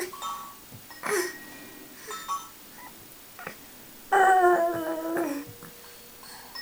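A baby's vocal sounds: a few short babbling noises, then one loud drawn-out squeal about four seconds in that falls slightly in pitch.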